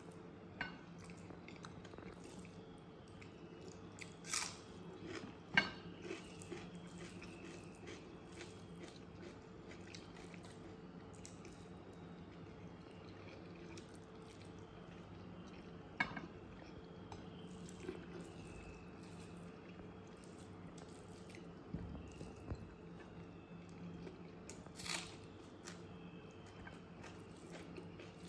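Close-up eating sounds of rice biryani and curry eaten by hand: soft chewing with occasional sharp wet mouth clicks and smacks, over a steady low hum.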